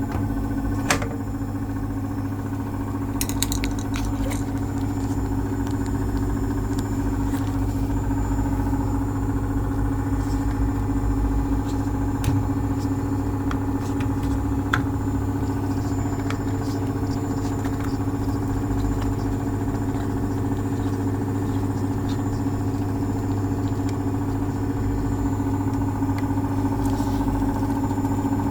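Washing machine running with a steady electric motor hum, with occasional light clicks and rattles, including a quick run of sharp ticks about three seconds in.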